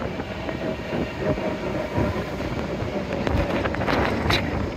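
Expedition Everest roller coaster train rolling along its track, wheels rumbling with scattered clacks and a faint steady whine.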